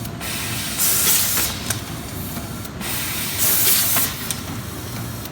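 Automatic rotary pouch-packaging machine running while packing baking soda. Steady machine noise is broken twice by a loud hiss, about two and a half seconds apart, with a few light clicks between.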